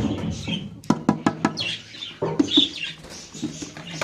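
Budgie nest box being opened: a quick run of knocks and clicks about a second in, followed by budgerigars chirping and squawking.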